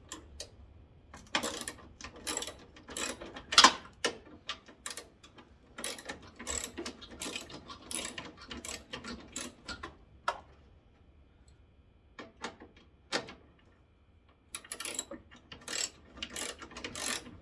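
Ratchet wrench clicking in quick runs as a bolt is turned out. The clicking stops for a few seconds past the middle, then starts again near the end.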